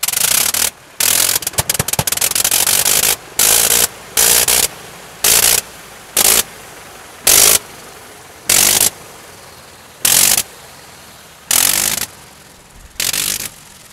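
Bentley BR.2 rotary engine of a Sopwith Snipe running in short bursts, cut and caught again about every second, the gaps growing longer toward the end. This is the ignition being blipped on and off to hold the speed down while taxiing, the usual way to handle a rotary engine on the ground.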